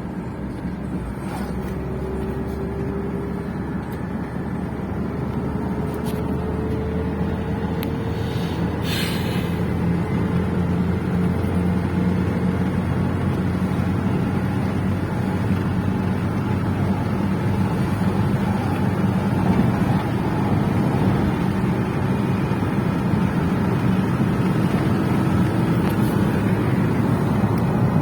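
Motor vehicle on the move: steady engine and road rumble, with a faint whine slowly rising in pitch as it gathers speed and grows gradually louder.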